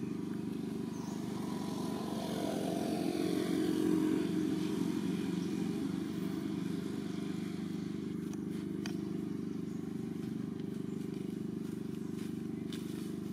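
A steady engine hum that grows louder for a few seconds around the fourth second, then settles back, with a few faint ticks near the end.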